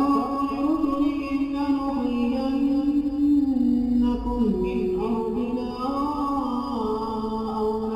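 A man's voice chanting Quran recitation in long, drawn-out melodic notes, drenched in an added echo effect. The pitch steps down a little past four seconds and climbs again about a second later.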